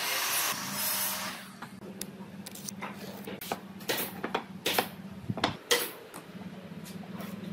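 A pen stroking a line along a metal speed square on a pine board, then a run of sharp clicks and knocks as the square and wooden boards are handled on a workbench, over a steady low hum.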